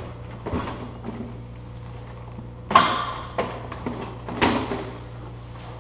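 Someone rummaging through workshop gear: a few sharp knocks and clatters, the loudest nearly three seconds in, over a steady low hum.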